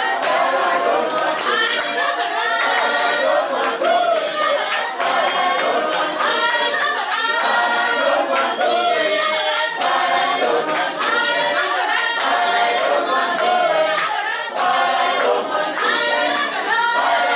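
A group of voices singing together a cappella in harmony, with hand-clapping in a steady beat.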